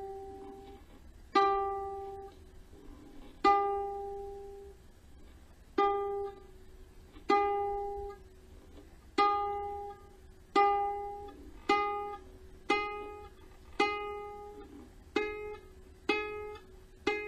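Kala Ukadelic soprano ukulele being tuned: one open string, likely the G, is plucked about a dozen times. Each note rings and fades before the next. The plucks come about every two seconds at first and quicker toward the end.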